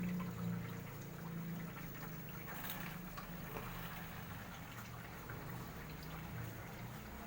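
Water trickling and splashing steadily down the waterfalls of an aquarium aquascape, over a steady low hum from the single pump that drives them.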